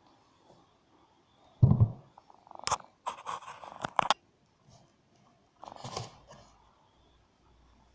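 A black metal stand panel being handled and laid into cardboard packaging: a dull thump, then sharp clicks with a second or so of scraping and crinkling cardboard, and a softer knock with rustling near the end.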